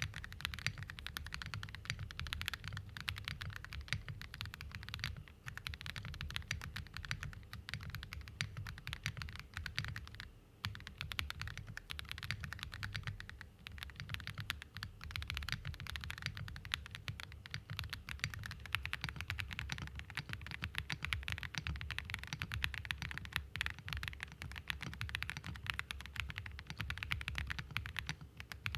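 Typing on a Meletrix Zoom98 mechanical keyboard fitted with Diamond Avalon switches and Cloud MOA keycaps. The keystrokes are fast and continuous, with short pauses about five, ten and thirteen seconds in.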